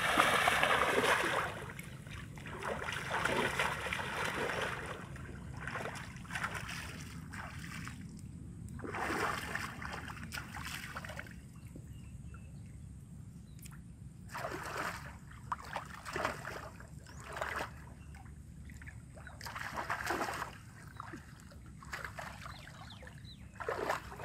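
Water splashing and sloshing as a person wades and gropes by hand for fish in a shallow muddy pond. It comes in irregular bursts, the loudest in the first second or so.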